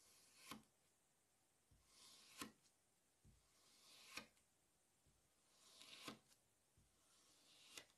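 Knife slicing through kinetic sand, faint: five cuts, about one every two seconds. Each is a soft gritty hiss that builds as the blade presses down through the sand and ends in a sharp click as it meets the surface beneath.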